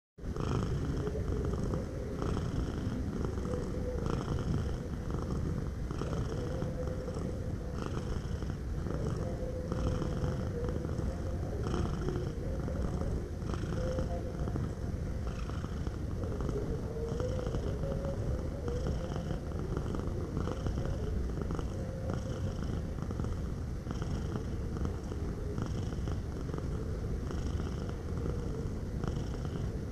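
Domestic cat purring steadily, a continuous low rumble that pulses evenly throughout.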